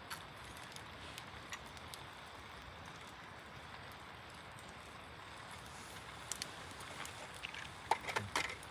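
Faint steady outdoor background hiss with a few light clicks and taps, several sharper ones coming close together near the end.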